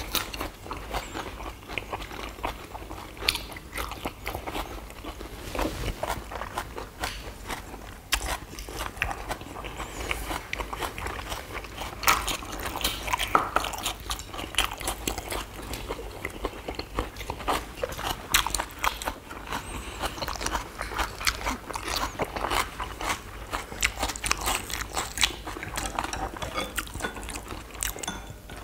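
Close-miked chewing and crunching by several people eating leaf wraps of fresh lettuce and perilla leaves with rice and duck bulgogi, with many short, irregular crunches and clicks.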